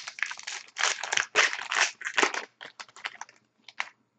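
Foil wrapper of a hockey trading card pack crinkling and tearing as the pack is opened: a run of rustling bursts for a couple of seconds, then a few lighter ticks.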